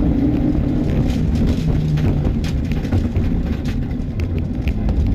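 Mitsubishi Lancer Evolution IX rally car's turbocharged four-cylinder engine running hard at speed, heard from inside the cabin, its pitch shifting as it pulls. About two seconds in, a run of sharp clicks and knocks starts and lasts almost to the end.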